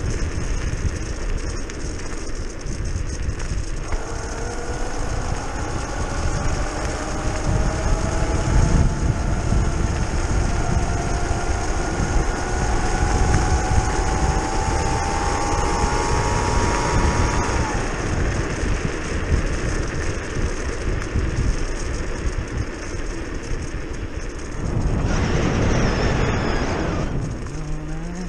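Electric scooter ride with heavy wind noise on the microphone and tyre rumble. From about four seconds in, the brushless outrunner hub motor whines in several tones that rise slowly in pitch as the scooter speeds up, then stop suddenly. A louder rush of wind comes near the end.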